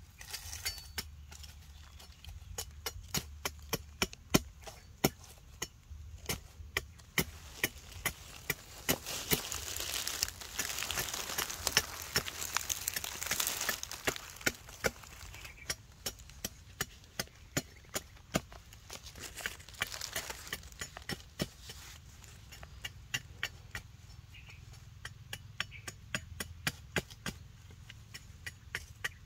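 Machete blade cutting and whittling a wooden stick: a long run of sharp chopping knocks, about two a second, with a stretch of scraping noise around the middle.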